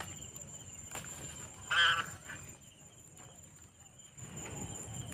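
A single short animal call with a wavering pitch about two seconds in, over faint outdoor background noise.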